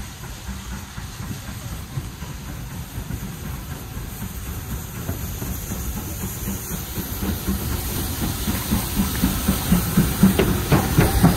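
BR Standard Class 5 steam locomotive No. 73156 approaching and getting steadily louder. A steady steam hiss runs throughout, and a rhythmic beat of exhaust and wheels comes in over the last few seconds as it draws level.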